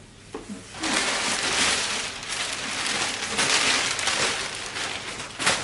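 Packaging of a large delivery box being opened: loud rustling and scraping for about four seconds, starting about a second in, then a sharp knock near the end.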